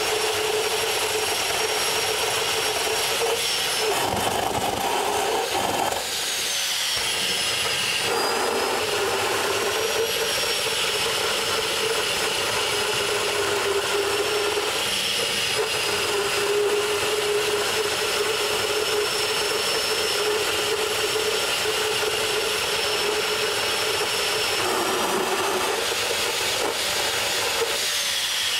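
Home-built propane gas turbine jet engine, made from a Buick Grand National turbocharger, running with a loud rushing roar and a high turbine whine. The whine climbs in pitch and falls back twice, once a few seconds in and again near the end.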